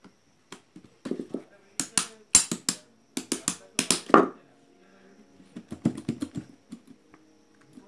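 Quick run of sharp clicks and metallic taps as a small single-phase induction motor's housing and shaft are handled and worked with hand tools, followed by a few softer knocks a couple of seconds later.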